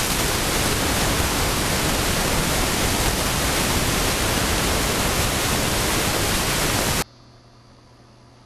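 Loud, steady static-like hiss of white noise that cuts off suddenly about seven seconds in, leaving a faint low hum.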